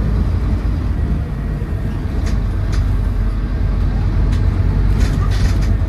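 Scania N230UD bus's five-cylinder diesel engine and ZF Ecomat automatic gearbox driving the bus along, a steady low drone heard from inside the passenger saloon. A few short interior rattles or clicks come in briefly, about two seconds in and again near the end.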